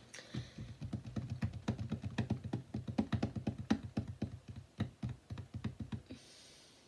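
Fingers tapping rapidly and unevenly on an iPad touchscreen, several taps a second, picked up through the tablet's own body as dull knocks; the tapping stops about six seconds in and a brief soft hiss follows.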